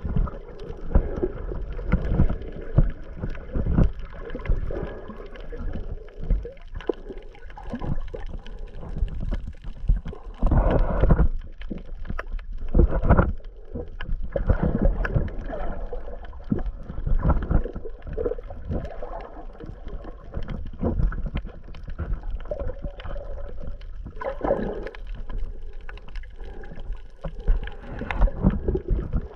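Water sloshing and gurgling, heard muffled through the submerged waterproof housing of a GoPro Hero 8 while snorkelling. It comes in uneven rushes, with the strongest surges a little past ten seconds in and again around twenty-five seconds.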